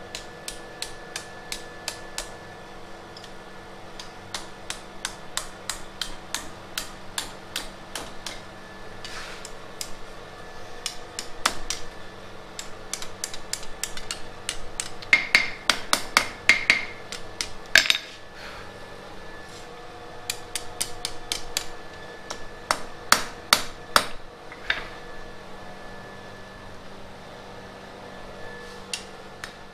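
Hand hammer striking a red-hot iron bar on an anvil, sharp blows at about three a second in runs with short pauses between them. A steady hum runs underneath.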